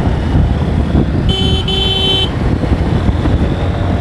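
A vehicle horn sounds twice about a second in, a short blast then a longer one, over the steady rumble of a motorcycle riding in traffic.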